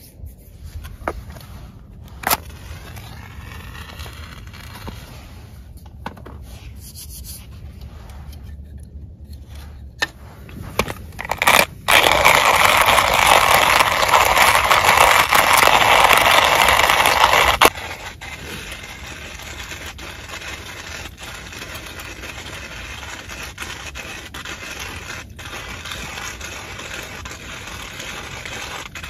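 Loud, steady scraping of hands working at kindling wood for about six seconds, stopping abruptly. Before it come lighter scrapes and a few sharp knocks, and after it a softer steady rustle.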